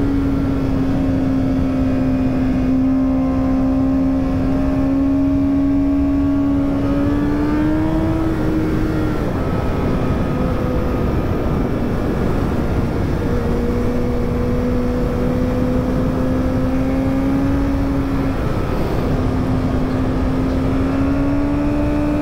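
Honda CBR1000RR Fireblade's inline-four engine running at high revs at a steady pitch, dropping away about nine seconds in and coming back lower about thirteen seconds in, then climbing a little near the end. A steady rush of wind noise runs underneath.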